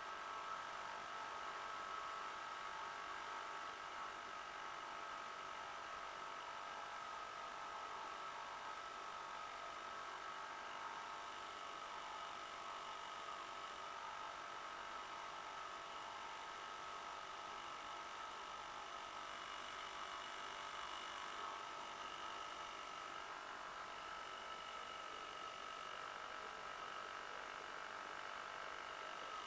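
Fifty-year-old Johnson 2 HP Seahorse two-stroke outboard motor pushing a canoe, running steadily at an even pitch.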